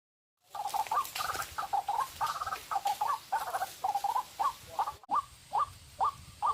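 White-breasted waterhen (ruak-ruak) calling: starting abruptly about half a second in with a fast run of chattering notes, then settling into short, repeated falling calls about two a second.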